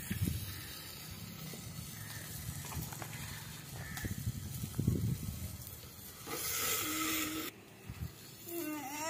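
Wood-fired cooking: a steady low hiss from the fire under a clay cooking pot, with soft knocks of metal pots and bowls being handled. About two-thirds of the way in a louder hiss with a low hum lasts about a second.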